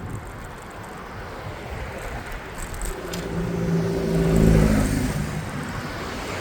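A motor vehicle passing close on a city street, its engine hum swelling to a peak about four and a half seconds in and then fading, over steady wind noise on the microphone from riding a bicycle.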